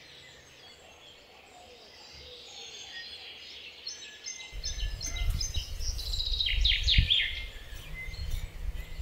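Small songbirds singing, with repeated runs of short high chirps and a fast trill near the end. About halfway in, a louder low rumbling noise starts, with a single knock a couple of seconds later, as a hand trowel digs into potting compost.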